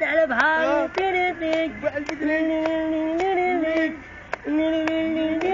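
A voice singing long held notes with a slight waver, breaking off briefly about four seconds in, with sharp clicks scattered through it.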